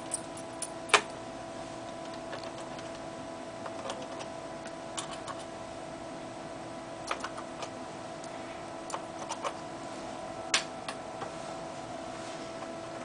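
Scattered small clicks and taps of hands handling laptop parts and hard drive hardware, over a steady hum. The sharpest clicks come about a second in and again near the end.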